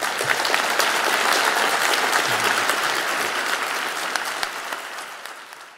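Audience applauding, a dense patter of many hands clapping that starts at once and fades out near the end.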